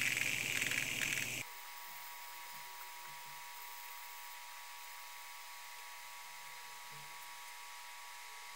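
Fidget spinner's ball bearing whirring loudly while it spins freely on a desk. About a second and a half in, it cuts off abruptly to a faint steady hiss with a thin hum.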